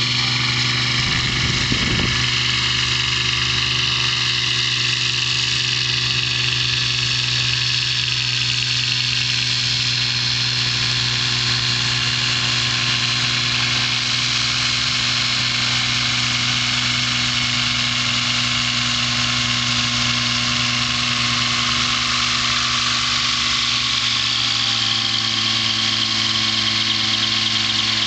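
Avid Flyer ultralight's Rotax 532 two-stroke twin engine and propeller running steadily at low taxi power, its pitch drifting slightly up and down.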